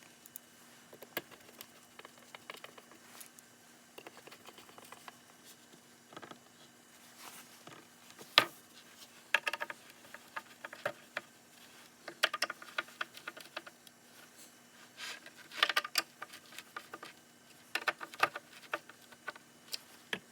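Irregular light clicks, taps and short scrapes of small tools and parts being handled at a workbench, over a faint steady hum.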